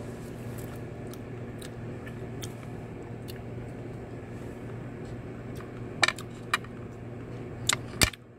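A person eating ripe carabao mango slices by hand: faint mouth clicks, then a few sharp clicks and taps between about six and eight seconds in, over a steady low hum.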